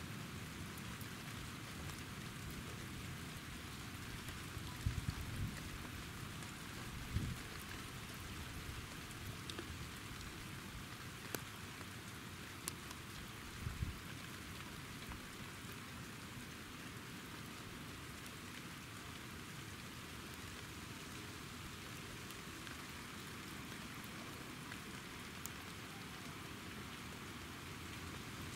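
Steady rain falling, an even hiss, with a few short soft low knocks about five, seven and fourteen seconds in.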